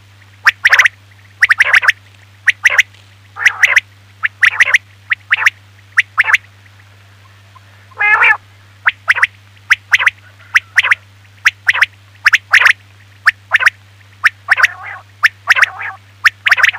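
Quail calling: short, sharp calls, often in quick runs of two or three, repeated with short irregular gaps. A steady low electrical hum runs underneath.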